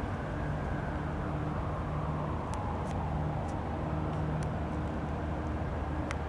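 Steady low rumble and hum of distant motor vehicle noise, with a few faint, short high ticks in the middle and once near the end.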